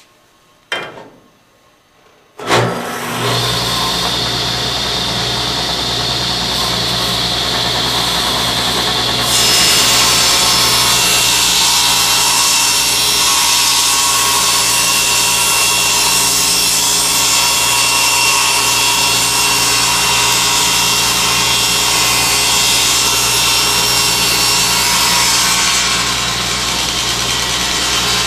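Table saw switched on about two and a half seconds in, its motor and blade then running steadily with a low hum. From about nine seconds a board is fed through the blade, making the sound louder and higher-pitched, and the cut eases off slightly near the end.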